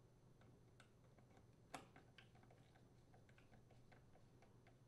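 Faint clicks and ticks of a screwdriver turning the strain relief screws on a dishwasher's sheet-metal terminal box, with one sharper click about two seconds in.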